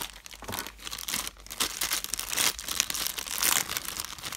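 Black foil blind bag crinkling in irregular bursts as it is pulled from a cardboard mystery-box and squeezed in the hands.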